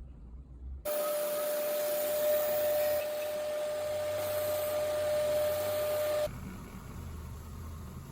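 A small electric motor running with a steady whine over a hiss. It cuts in suddenly about a second in and cuts off abruptly about six seconds in, leaving a quieter noise.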